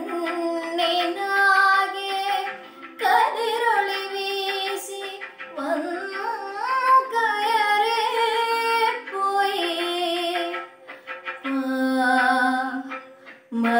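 A girl singing solo in Carnatic classical style: long held notes with bending, wavering pitch, sung in phrases separated by short breaks for breath.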